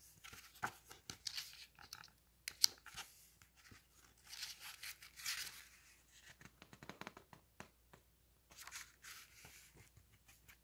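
Paper pages of a large hardcover picture book being handled and turned: faint scattered rustles and light taps, with a longer page swish about five seconds in.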